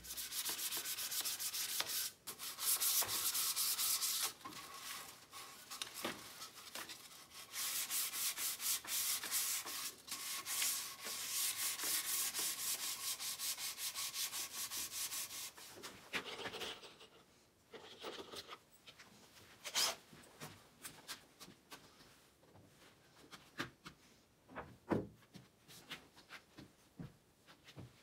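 Sandpaper worked by hand over pine spindles and rails: quick back-and-forth rubbing strokes for about the first sixteen seconds. After that, scattered light knocks and clicks of wood being handled.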